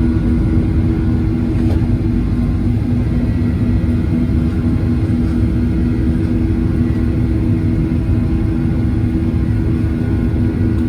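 Steady cabin noise of a Boeing 737-900 in flight: a low rumble of engine and airflow with a constant drone from its CFM56 turbofans.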